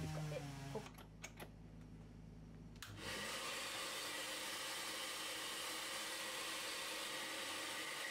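A few light clicks of handling, then about three seconds in an electric workshop machine starts and runs steadily with a rushing whir and a faint high whine. Before that, a low steady hum dies away within the first second.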